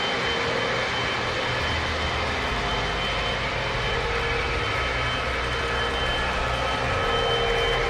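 Several Lionel O gauge model trains running at once: a steady rumble of wheels on the track and running motors, with a few faint held tones.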